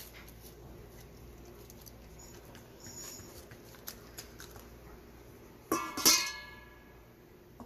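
Hands patting and pressing soft rice-flour dough flat on a banana leaf: faint soft pats, rustles and small ticks. About six seconds in comes a short, loud ringing sound that fades over about a second.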